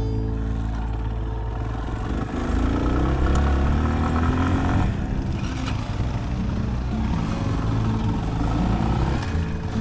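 Yamaha Serow 250's single-cylinder engine running on the move, its pitch climbing as the bike accelerates, falling back about halfway through, then rising again.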